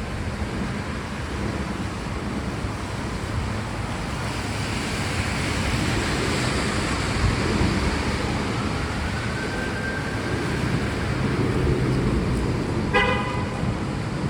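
Steady rain and road traffic noise, with one short car horn toot near the end.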